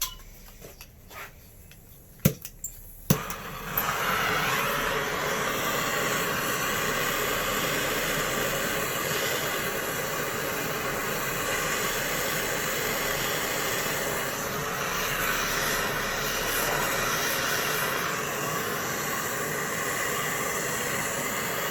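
MAP gas torch being lit, with two sharp igniter clicks a couple of seconds in, then burning with a steady hiss as it heats a copper pipe joint for soldering.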